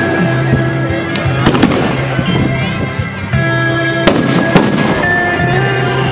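Aerial firework shells bursting with sharp bangs, a cluster about a second and a half in and another about four seconds in. Underneath runs the show's music, with long held notes.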